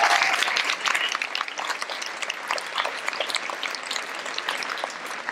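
Audience applauding in a large gym, many people clapping steadily and slowly tapering off.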